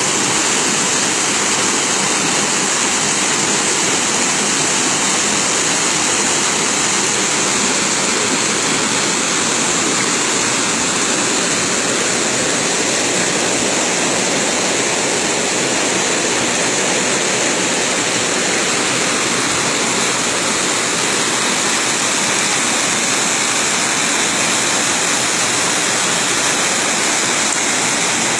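Spring water gushing out of a rock opening and churning into a pool, a loud, steady rush of whitewater.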